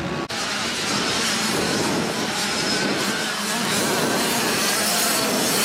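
A pack of small youth motocross bikes racing together, many engines revving over one another, getting a little louder as they come closer. There is a brief break in the sound about a third of a second in.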